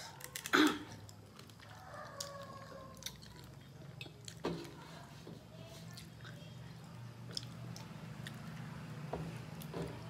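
Eating by hand from metal plates: scattered clicks and scrapes of fingers on the plates, with chewing and mouth sounds. A sharp clatter just after the start is the loudest sound, and a steady low hum runs underneath.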